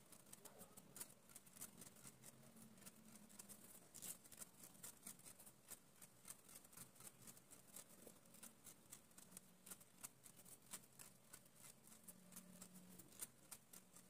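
Faint, quick, irregular ticking of a twisted thread being worked back and forth over the upper lip in threading, as the twist catches and pulls out the hairs.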